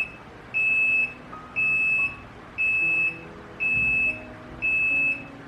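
Electronic beeper sounding a single high-pitched tone of about half a second, repeating about once a second, over quiet piano music.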